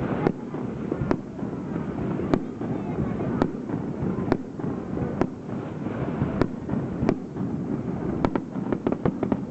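Aerial firework shells bursting in a fireworks display. The sharp bangs come about once a second, then several burst in quick succession near the end.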